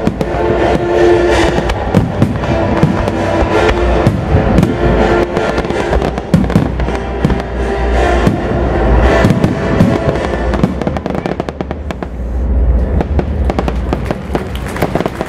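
Fireworks display: aerial shells bursting with many sharp bangs and crackles over music. The music and the bangs thin out in the last few seconds.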